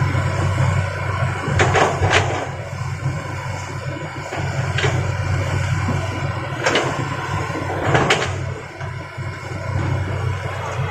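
Excavator's diesel engine running steadily, with several short crashes of rock being scooped or dropped: two close together about two seconds in, one near the middle, and two more later.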